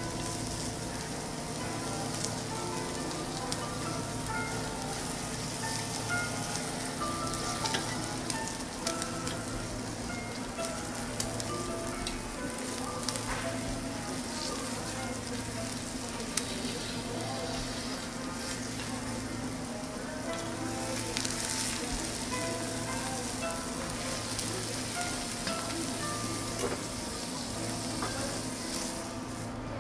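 Wagyu steak sizzling steadily on a hot teppanyaki steel griddle while it is cut with a knife and carving fork, with scattered light clicks of the steel tools against the plate. Background music plays underneath.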